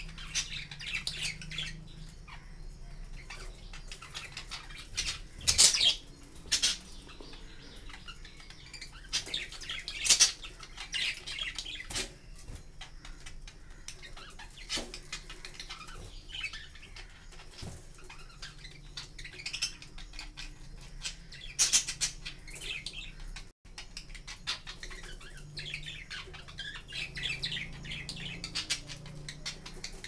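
A flock of budgerigars chirping and squawking in short high bursts, with a few louder calls standing out now and then.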